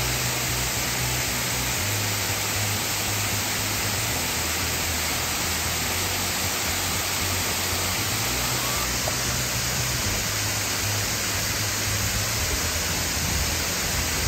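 Shallow mountain river running over rocks: a steady rushing hiss of water, with background music underneath.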